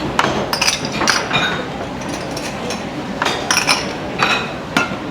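Dishes and bowls clinking against each other: a string of sharp clinks with short ringing, bunched in the first second or so and again from about three seconds in.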